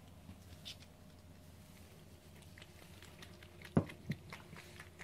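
A cat starting to eat from a food dish: faint small clicks and patter of chewing, with one sharp knock about four seconds in and a smaller one just after.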